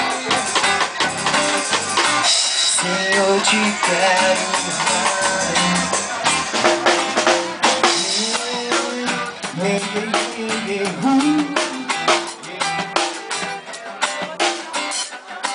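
Live band music: a drum kit driving a steady beat under electric and acoustic guitars, an instrumental stretch with no singing.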